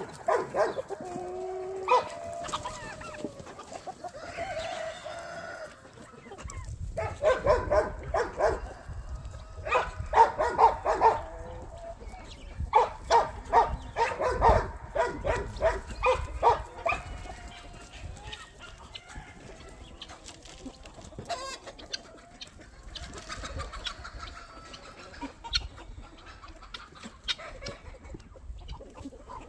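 A flock of chickens clucking, with a rooster crowing. The calling is densest and loudest in the middle, as runs of rapid repeated clucks, and thins out toward the end.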